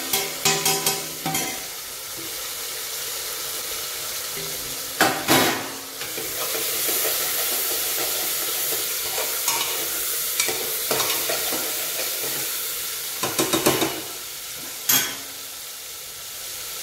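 Green valor beans and tomato sizzling in hot oil in a pressure cooker, just added to a tempering of mustard seeds, cumin and asafoetida. A metal spoon stirs them, clattering sharply against the pot near the start, about five seconds in, and a few times near the end.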